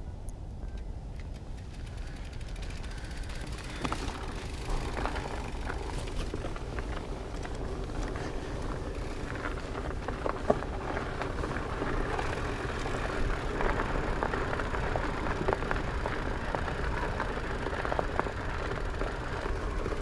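Fat bike being ridden: tyres rolling over pavement and gravel, with scattered rattles and clicks from the bike and a low wind rumble on the microphone. It grows a little louder after a few seconds as the ride gets going.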